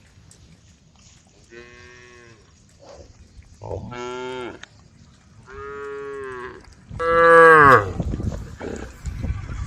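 Cattle mooing: four moos about two seconds apart, the last the loudest, followed by a low rumbling noise near the end.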